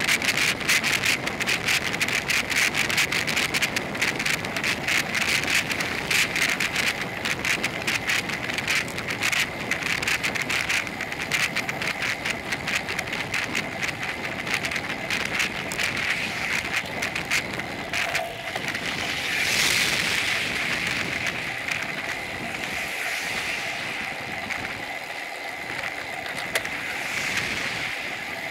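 Wind buffeting a bike-mounted camera's microphone while cycling along a road, with a steady rush of wind and road noise. About two-thirds of the way through a motor vehicle passes with a brief swelling rush, and a smaller pass comes near the end.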